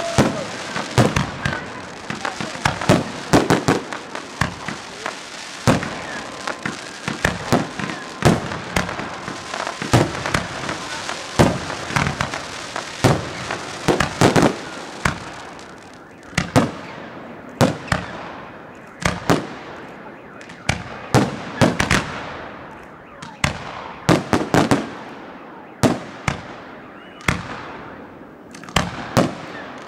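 Fireworks going off in quick succession: many sharp bangs over a dense crackling hiss, then separate bangs, each with a fading crackle, in the second half.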